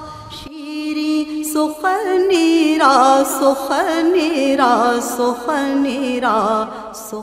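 Solo voice singing a slow, ornamented devotional chant with no beat, starting about half a second in and fading near the end.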